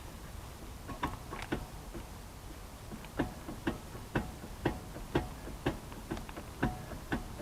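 Lada Niva front wheel rocked by hand, giving light knocks: a few scattered clicks, then an even rhythm of about two a second from about three seconds in. The knocks come from play in the front hub bearing, which is not yet tightened.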